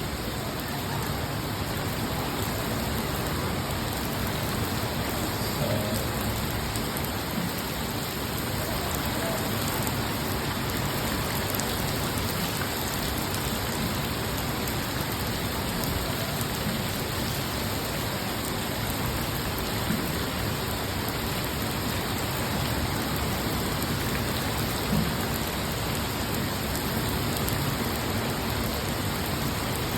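Steady rain falling, an even hiss of drops, with a few slightly louder moments.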